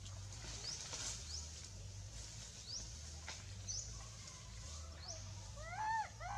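A young monkey crying: a quick run of short arching cries, each rising then falling in pitch, starts about five and a half seconds in and is the loudest sound. Short, rising high-pitched chirps repeat every second or so in the background.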